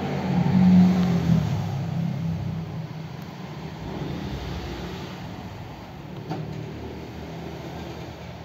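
A motor vehicle's engine running, loudest about a second in and then slowly fading.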